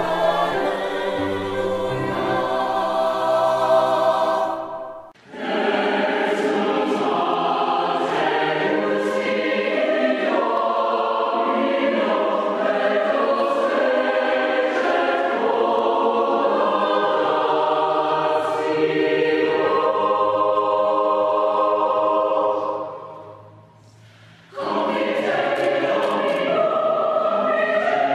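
Choir singing in harmony. The singing stops briefly about five seconds in, and again for about two seconds near the end, before a new phrase begins.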